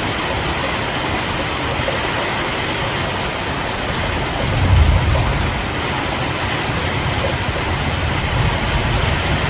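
Steady rain falling, an even hiss. A low rumble swells briefly about five seconds in and again more faintly near the end.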